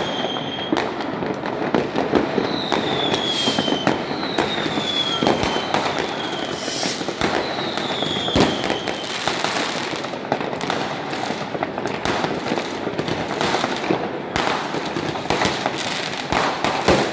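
A dense barrage of fireworks and firecrackers: many overlapping bangs and crackles with no pause. In the first half several whistling fireworks each give a whistle of about a second that falls in pitch.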